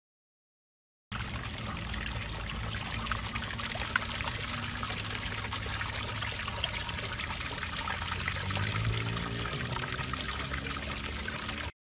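A jet of water spraying and splashing into a tub of standing water, a steady rushing splash. It starts abruptly about a second in and cuts off suddenly near the end.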